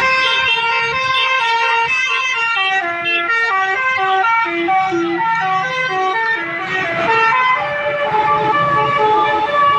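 Bus 'telolet' multi-tone air horn of the Basuri type playing a tune: a continuous run of short held notes stepping up and down in pitch.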